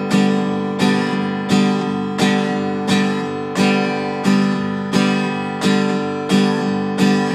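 Acoustic guitar strummed in a steady rhythm, about three chord strokes every two seconds, each chord left ringing until the next.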